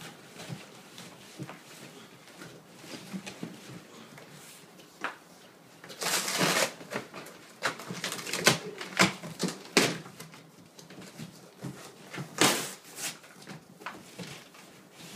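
Unpacking handling noises: scattered clicks and knocks, with louder rustling bursts about six seconds in and again near twelve seconds.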